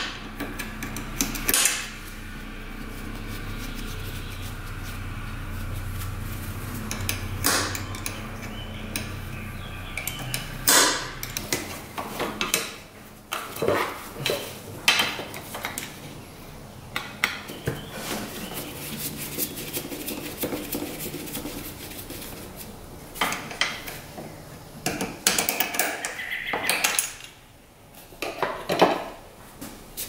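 Metal hand tools and parts clinking and clattering at irregular intervals while a carburetor is unbolted from an ATV engine, with a low steady hum under roughly the first ten seconds.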